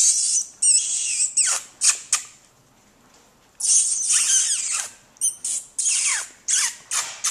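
Four-week-old Maltipoo puppies squealing and yelping in a string of high-pitched cries that slide down in pitch, with a short lull about a third of the way in before a longer run of cries.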